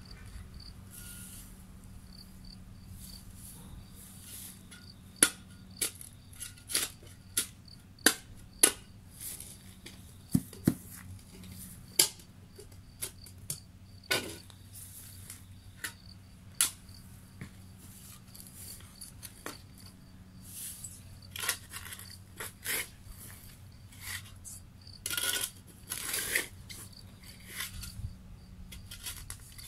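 Steel shovel blade digging into stony soil, striking and scraping buried stones in irregular sharp clinks, with a cluster of longer scrapes near the end.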